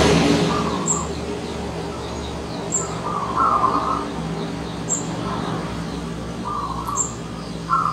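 Zebra dove cooing: short rolling coo phrases repeated every second or two, with faint high chirps about every two seconds. A swell of noise fades over the first second.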